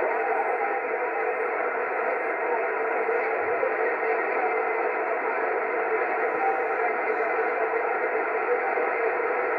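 CB radio receiver tuned to 27.555 MHz upper sideband giving out a steady hiss of band static, with faint steady tones in it: no station answering the CQ call.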